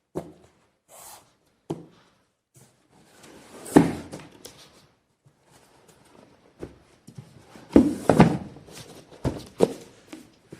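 Packaging being handled during an unboxing: irregular knocks, thuds and rustling, loudest about four seconds in and again around eight seconds in.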